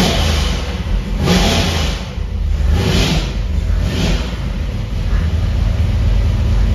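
A newly built 377-cubic-inch Clevor V8 running on an engine dyno during break-in, with a steady low rumble and four brief surges in throttle and revs in the first four seconds or so.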